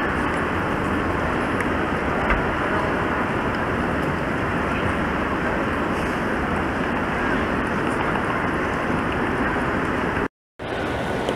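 Steady background noise of a large, busy airport terminal hall: an even wash of indistinct crowd and building sound with no clear voices. It drops out for a moment near the end.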